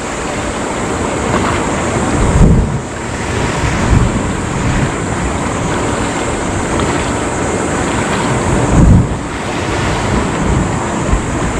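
Steady rush of wind and water, with wind buffeting the microphone in a few low gusts.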